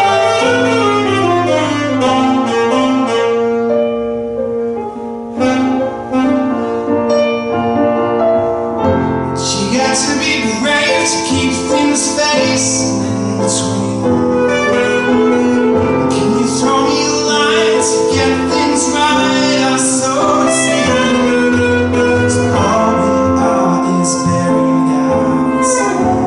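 Saxophone and Korg electric keyboard playing an instrumental break with no vocals: the sax plays melody lines over the keyboard's chords. The playing grows fuller and brighter about nine seconds in.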